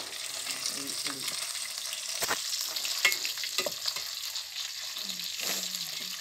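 Fish pieces frying in hot oil in a metal pot, a steady sizzle, with a metal spoon scraping and knocking against the pot a few times as the pieces are turned.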